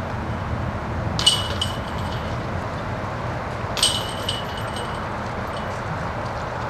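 Two discs striking a disc golf basket's metal chains, about two and a half seconds apart, each a sharp metallic clank with a brief ringing that dies away, over steady outdoor background noise.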